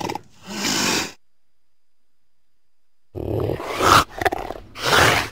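Mountain lion giving rough, hissing growls: one short call, a two-second silence, then a run of several more, the loudest about four and five seconds in.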